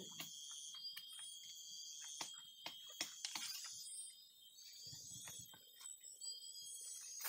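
Faint, steady high-pitched insect drone with scattered light clicks and rustles from hands working a coffee twig and blade to prepare a graft.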